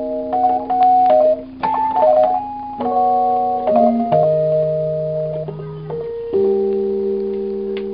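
1972 Fender Rhodes Mark I electric piano played in held chords, a new chord or melody note struck every second or so and left ringing as it fades. The restored instrument is working again.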